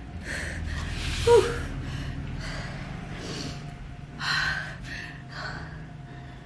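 A woman breathing hard and gasping, out of breath from the exertion of holding a one-minute plank: a run of heavy breaths, one about a second in voiced into a short falling sigh.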